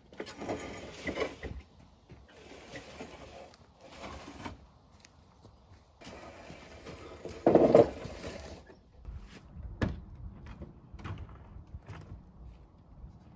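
A metal-framed picnic table dragged and shoved across packed dirt in several scraping pushes, with one louder jolt a little past halfway.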